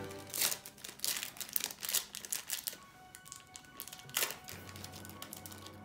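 Trading-card pack wrapper crinkling and tearing as it is pulled open by hand, a run of sharp crackles over the first few seconds and one more about four seconds in; the pack is hard to open. Quiet background music underneath.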